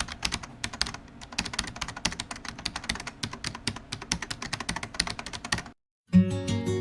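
Rapid, irregular clicking of keyboard typing, several keystrokes a second, which stops shortly before the end. After a brief silence, strummed acoustic guitar music starts.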